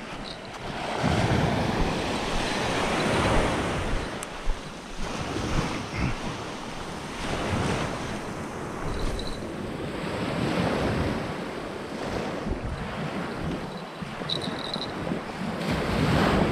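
Sea surf washing onto the beach in repeated surges that swell and ebb, with wind buffeting the microphone.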